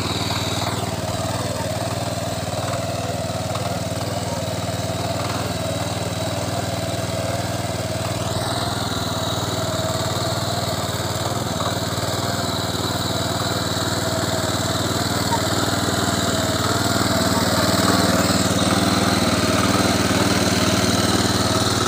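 Small engine of a walk-behind mini power tiller running steadily while it tills the soil, a little louder in the last few seconds.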